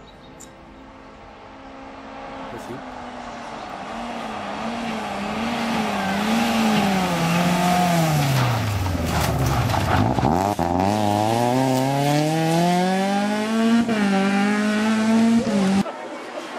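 BMW 120d rally car's four-cylinder turbodiesel engine coming closer and getting louder, its revs rising and falling several times. The revs then drop steeply as it slows for the corner about ten seconds in, and climb again through the gears as it accelerates away. The sound cuts off suddenly near the end.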